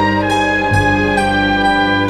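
Instrumental music: held notes over a low bass line that changes note about a second in.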